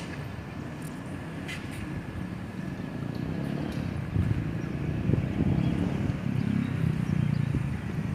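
Diesel locomotive engines rumbling as the train approaches, growing louder from about three seconds in; the locomotives are EMD G22U units with twelve-cylinder two-stroke 645 diesels.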